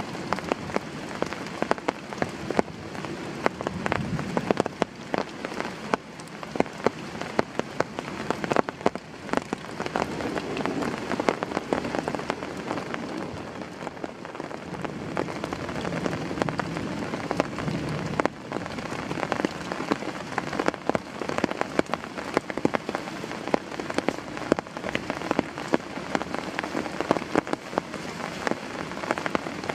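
Heavy rain falling steadily, with a dense patter of individual drops tapping sharply and irregularly on a surface.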